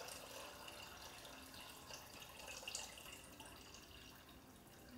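Water poured from a jug into a Thermomix mixing bowl, a faint steady trickle with a few small drips.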